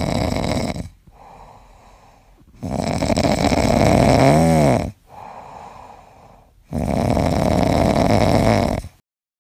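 Sleeping French bulldog puppy snoring: three long snores about four seconds apart, with softer breaths in between.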